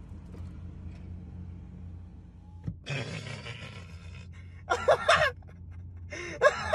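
Low steady rumble of an idling car, then a person's loud breathy gasp-like sound about three seconds in and two short vocal outbursts, one about five seconds in and one near the end.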